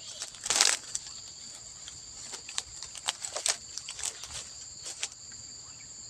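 Steady, high insect chirring of crickets, with irregular rustles and clicks over the first five seconds, the loudest about half a second in.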